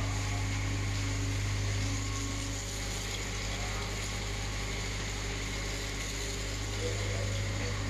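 Steady low hum of a ship's running machinery with an even hiss of ventilation over it.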